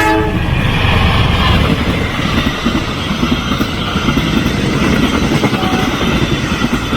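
A train passing close by at a station platform, its wheels rumbling and clattering over the rails.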